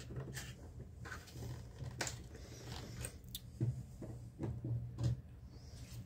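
Faint, scattered clicks and taps of hands handling a plastic propeller and spinning a small metal prop nut onto a model-airplane motor's prop adapter, over a quiet steady low hum.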